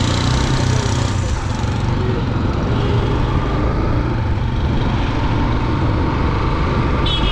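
Motorcycle engine running steadily while riding, with wind noise over the microphone. A short high-pitched beep comes near the end.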